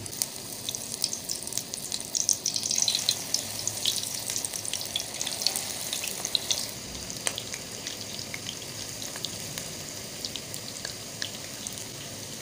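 Freshly added pakoras (gram-flour batter with onion, potato and spinach) deep-frying in hot oil in a wok, making a steady sizzle with scattered crackling. The crackle is loudest and busiest in the first half, then settles to an even fizz.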